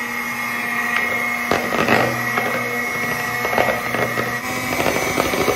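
Handheld electric mixer running steadily, its beaters whisking egg whites in a ceramic bowl, with a constant motor whine and a few sharp clicks.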